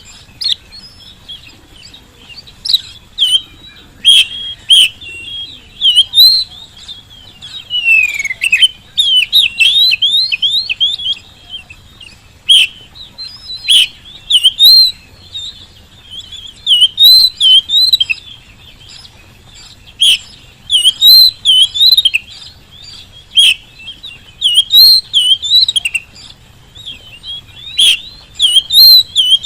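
Oriental magpie-robin singing loudly in short, varied phrases of whistled, gliding notes mixed with sharp clicks, with a brief pause between phrases.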